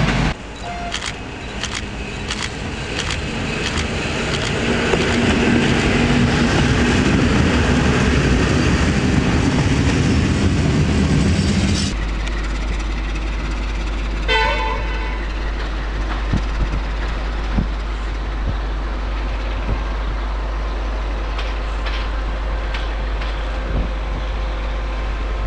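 Railway locomotive running loudly, building up over several seconds and then cutting off abruptly. A quieter steady diesel locomotive engine hum follows, with one short horn toot a little past halfway and a few light clicks.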